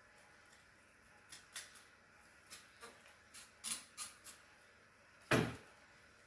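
Boning knife scraping and clicking against a chicken's leg bone as the meat is worked free: a run of short, sharp scrapes and ticks, then one louder knock a little after five seconds in.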